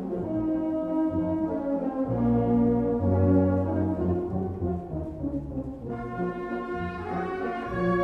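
Orchestral music led by brass, playing slow, held notes over a low bass line that steps from note to note.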